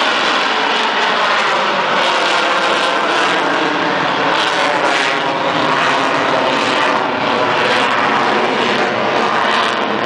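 Lockheed Martin F-22 Raptor's two Pratt & Whitney F119 turbofan engines, a loud, steady jet noise with faint tones slowly gliding in pitch as the fighter flies overhead.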